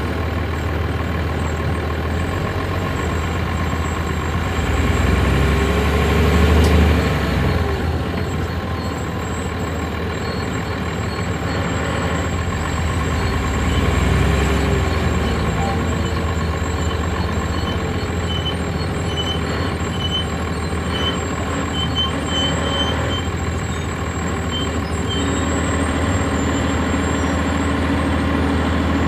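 A 1999 NovaBus RTS transit bus's Cummins ISC diesel engine and ZF Ecomat automatic transmission running, heard from on board the bus. The engine swells louder twice, about five to seven seconds in and again around fourteen seconds in, then settles back.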